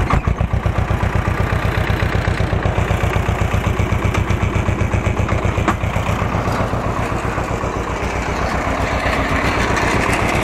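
Ursus C-330 tractor's two-cylinder diesel engine running with an even, pulsing beat.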